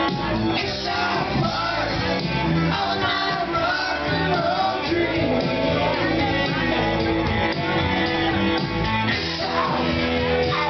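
Karaoke: a rock backing track playing, with people singing along over it.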